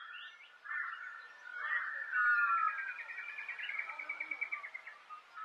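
Birds calling: several short chirps, then a fast trill of repeated notes lasting about two seconds near the middle.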